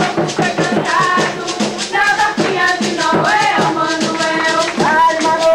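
Live coco music from northeastern Brazil: a voice singing held notes that slide between pitches, over a fast, steady rattling percussion beat.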